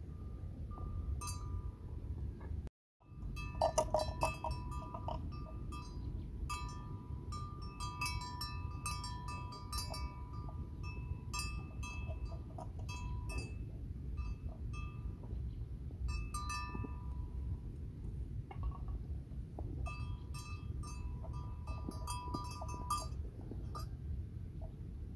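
Small metal bells clinking and ringing irregularly, a few fixed ringing pitches coming and going in clusters over a low outdoor rumble. The sound breaks off completely for a moment about three seconds in.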